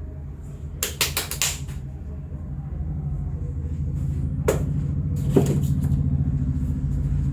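Sharp clicks and cracks from the hands during a head and neck massage: a quick run of several about a second in, then one more and a short cluster a few seconds later, over a steady low mechanical hum that slowly grows louder.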